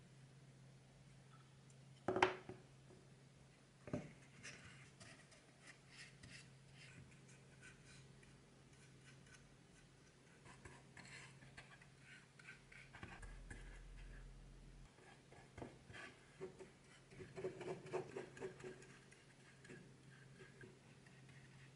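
Small paintbrush strokes on a miniature wooden cabinet, a faint scratchy brushing with light ticks from the handled wooden parts. A sharper knock comes about two seconds in and another about four seconds in, over a steady low hum.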